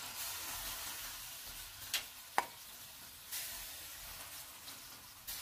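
Straw mushrooms sizzling in hot caramel sauce in a pan, stirred with a spatula. Two sharp clicks come about two seconds in.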